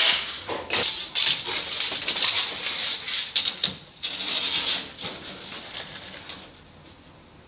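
Tools and a clamped wooden panel being handled: a string of sharp clicks, rattles and scrapes for about six seconds, then it goes quiet.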